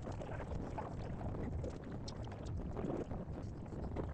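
Wind buffeting the phone's microphone: a steady, fluttering low rumble.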